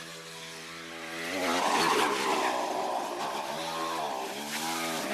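Mini bike's small gas engine running, steady at first, then revving up and getting louder about a second and a half in. It drops off briefly near the end and picks up again.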